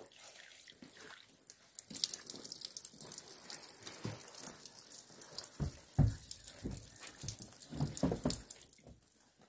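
Spring water trickling and splashing from a small spout into cupped hands, with scattered drips. A few dull knocks come in the second half, the loudest about six seconds in.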